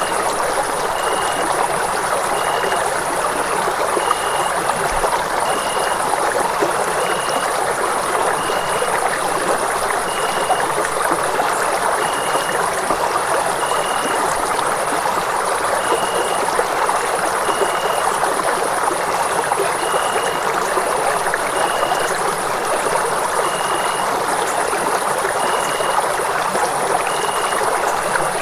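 Running water rushing steadily, like a stream, with a faint high-pitched pulse repeating about every second and a half.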